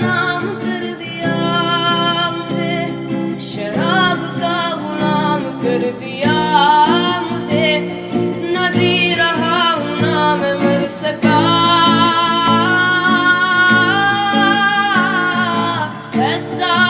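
Background music: a song with a sung melody over plucked guitar accompaniment.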